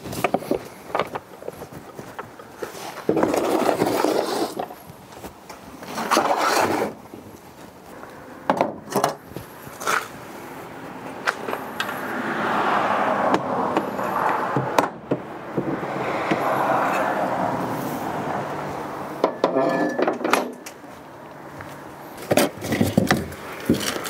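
Irregular knocks, clatters and scrapes of hard, mostly wooden objects being handled and moved about. Two longer stretches of scraping, as of something being dragged, come about halfway through and again a few seconds later.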